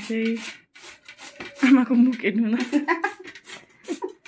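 Dough being worked by hand on a board: repeated short rubbing, scraping strokes, about three a second. A woman's voice sounds over them, loudest in the middle.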